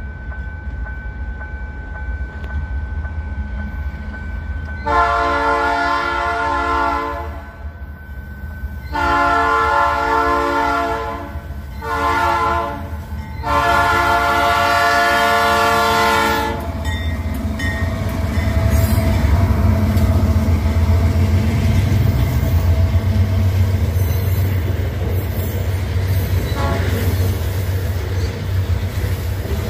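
The multi-chime air horn of a GE AC44i diesel-electric freight locomotive sounds the level-crossing signal: long, long, short, long. After it, the locomotives' diesel engines and the rolling grain wagons rumble heavily as the train passes.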